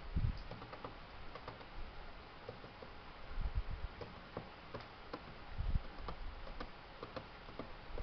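Irregular light ticks and clicks, about two a second, with three brief low rumbles: one right at the start, one about halfway through and one about three-quarters through.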